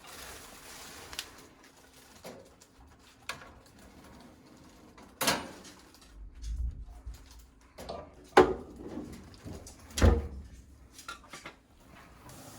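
Handling sounds: scattered light clicks and three sharper knocks, about five, eight and ten seconds in, the last with a dull thud.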